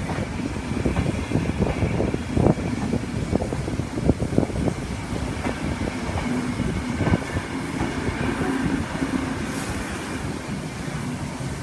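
Heritage railway passenger carriages rolling past slowly, their wheels knocking and clicking irregularly over rail joints and points over a low rumble, with a faint thin wheel squeal. The knocks thin out near the end as the last carriage goes by.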